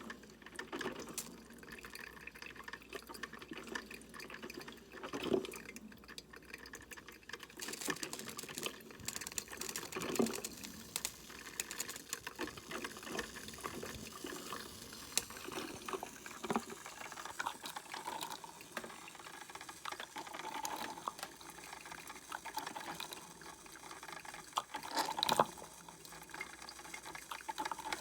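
Mr. Coffee 5-cup drip coffee maker brewing: water gurgling and sputtering through the machine in irregular pops over a faint steady hiss, with a louder gurgle near the end.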